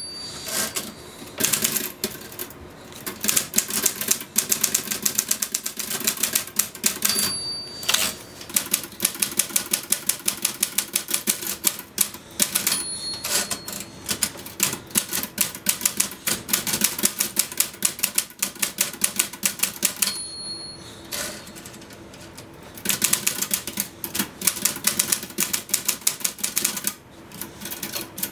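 Rapid, continuous typing on a manual typewriter: a fast stream of key strikes. The line-end bell dings at the start and then about every six to seven seconds, each ding followed by a short break in the typing as the carriage is returned.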